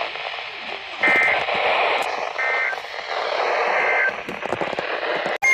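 Weather radio receiver hissing with static between broadcasts, with three short warbling bursts of EAS/SAME digital header data about a second and a half apart, the coded header that announces a new alert. The signal drops out briefly just before the end.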